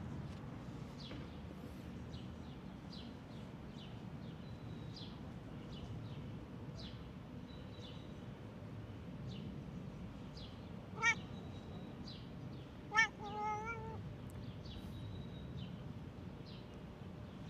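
A cat meowing twice, two short meows about two seconds apart, the second drawn out a little longer. Faint bird chirps and a low steady hum run underneath.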